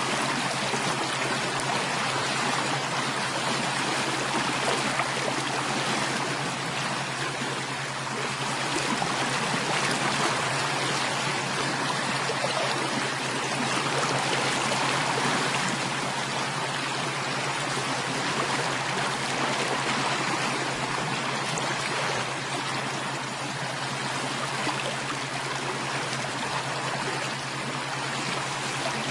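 Steady running water, a stream flowing evenly.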